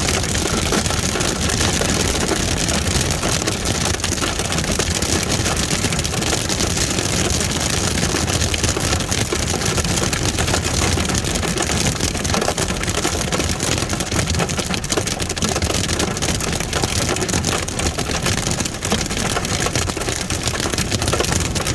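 Hail hitting a stopped vehicle's roof and windshield, heard from inside the cabin: a dense, unbroken clatter of countless small hits that stays steady throughout.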